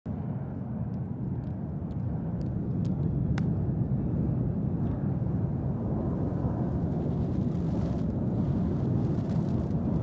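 Steady low outdoor rumble, with a few faint sharp clicks about every half second during the first three and a half seconds.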